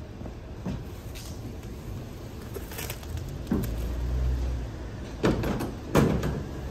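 Plastic-wrapped bar stools being slid across a pickup truck's bed and lifted in, with a low scraping rumble midway and two sharp knocks near the end as they are set down.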